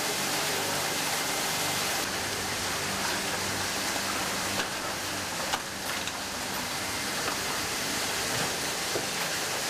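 Steady rush of water running into a flooded cellar, with a single light knock about five and a half seconds in.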